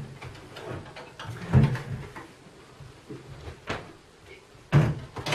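A few separate wooden knocks and thumps, like a wooden crate or its lid being moved and handled, spread through the few seconds.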